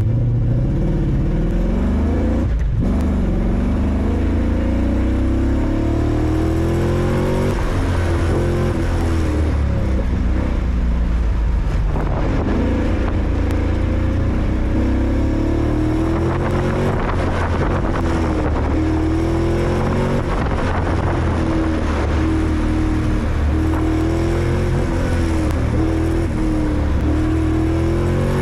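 1996 Corvette's LT4 small-block V8 engine pulling hard, its pitch climbing and dropping back over and over at the gear changes and lifts. It is running rough with misfires, which the driver puts down to the spark plug wires.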